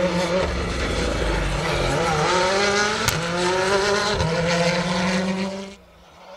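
Hyundai i20 R5 rally car's 1.6-litre turbocharged four-cylinder engine at speed, its pitch rising and falling through gear changes, with one sharp crack about three seconds in. The sound cuts off suddenly near the end.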